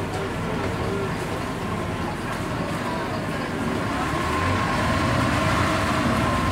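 Wooden river shuttle boat's engine running steadily, with a faint whine in it, growing a little louder about two-thirds of the way through.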